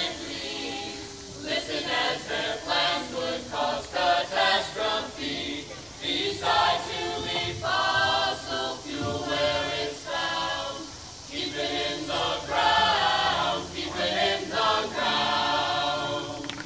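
A small choir of adults and children singing together, in phrases broken by short pauses about every five seconds.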